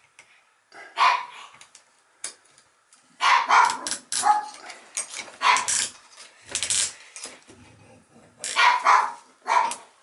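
A dog barking repeatedly: a dozen or so sharp barks in irregular clusters.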